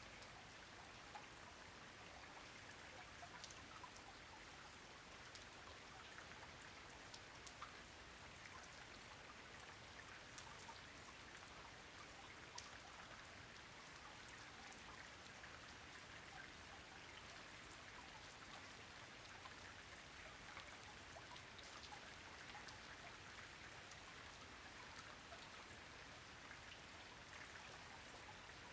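Quiet, steady rainfall, with single drops ticking sharply now and then above the even hiss.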